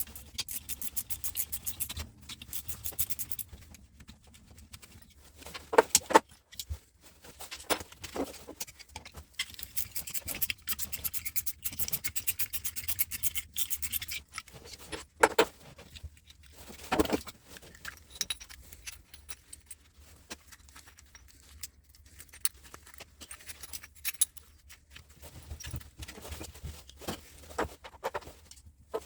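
Metal clinking and rattling from hand tools and metal parts while a switchgear unit is taken apart, with runs of rapid clicking and a few sharper knocks.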